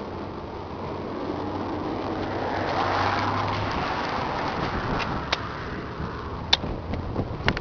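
A motor vehicle passing: a rushing sound swells to a peak about three seconds in and fades, over a steady low hum that stops shortly after the peak. A few sharp clicks near the end.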